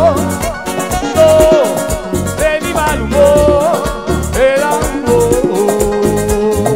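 Live Latin tropical band playing an instrumental passage between sung lines. A held, bending melody line sits over electric bass and drums, with a quick, even percussion tick on top.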